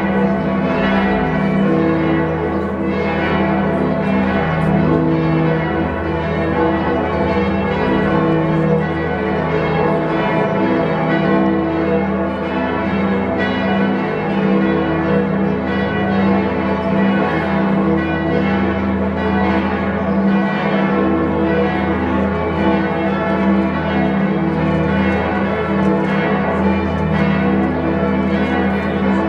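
Frankfurt's Großes Stadtgeläut (Great City Peal): many large church bells, the Kaiserdom's among them, ringing together in a dense, unbroken wash of overlapping tones.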